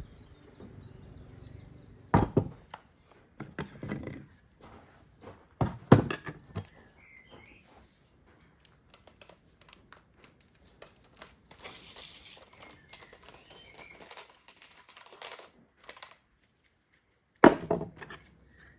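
Small parts and hand tools being handled during a repair: scattered clicks and taps, with sharp knocks about two, six and seventeen seconds in and a short hiss about twelve seconds in.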